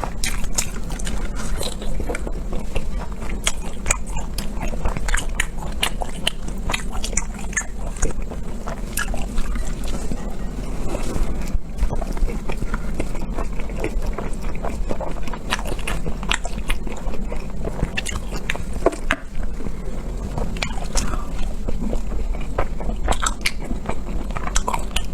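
Close-miked eating: continual biting and chewing, with many short sharp clicks and smacks of the mouth and food.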